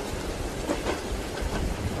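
Steady rain falling on a train window over the low rumble of a moving train, with a few soft knocks of the wheels on the rails.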